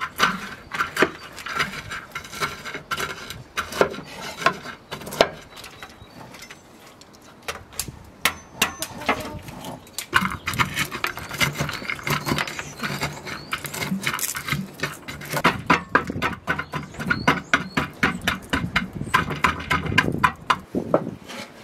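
Nut kernels being crushed by hand with a stone in a metal pan, along with shells being picked over: a long run of sharp clicks, knocks and cracks with short pauses.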